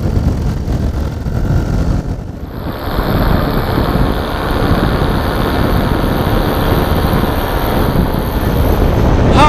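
Motor paraglider in flight: steady wind rush on the microphone mixed with the drone of the paramotor's engine and propeller. The sound dips and changes character about two seconds in, then holds steady.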